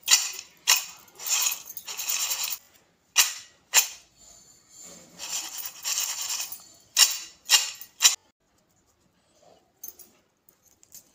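Crisp batter-coated masala peanuts rattling and clattering on a steel plate as it is shaken and tossed, in several loud bursts with sharp clicks. The rattling stops about eight seconds in, followed by a few faint small cracks as pieces are broken by hand.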